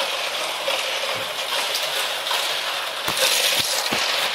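Battery-powered toy race-car track running: small plastic cars rattling and clattering along the plastic track, with scattered clicks and a few short knocks near the end.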